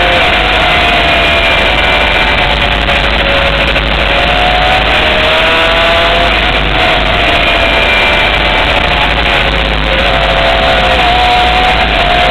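Honda CBR600 sport bike's inline-four engine running hard, its note climbing and dropping back several times through the revs, under a dense rush of wind noise.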